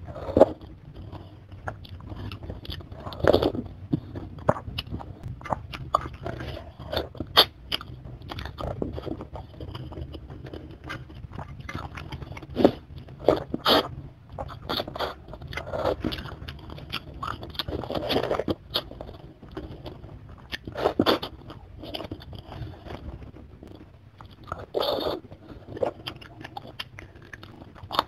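Close-miked eating: broth sipped from a spoon near the start, then a chicken foot bitten and chewed, with irregular sharp clicks and wet mouth sounds throughout.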